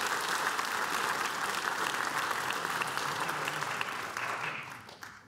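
Audience applauding steadily, the applause dying away in the last second or so.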